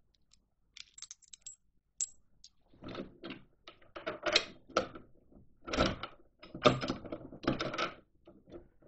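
Small metal hardware and a hand tool being worked while bolting a steel drawbar to a plastic sledge. A few light metallic clicks about a second in, then from about three seconds in several short spells of clinking and scraping.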